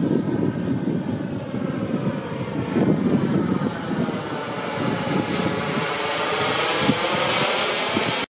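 Radio-controlled scale model of an Aermacchi MB-339 jet flying past: a steady jet hiss whose tone sweeps down and back up as it passes, growing brighter toward the end.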